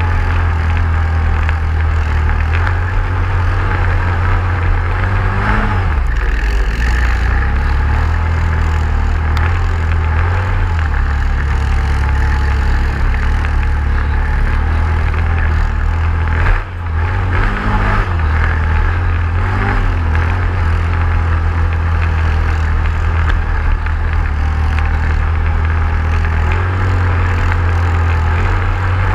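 ATV engine running steadily while the quad is ridden, its pitch shifting a few times with the throttle and dipping sharply once about two-thirds of the way through.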